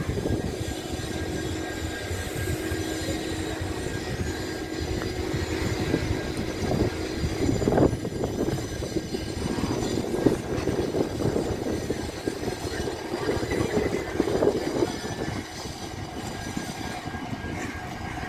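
Railway station ambience: a steady rumble from trains at the platform with a constant hum, the level swelling and easing slightly.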